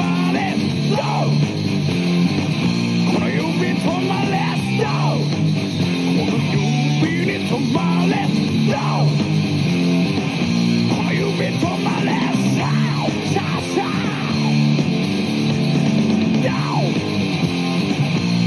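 Background rock music led by guitar, an instrumental stretch of a song with no sung words.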